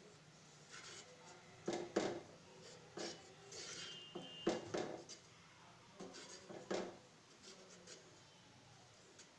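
A spoon stirring milk curdled with vinegar in a stainless steel pan, scraping and knocking against the pan's sides and bottom at irregular moments, with a few louder knocks.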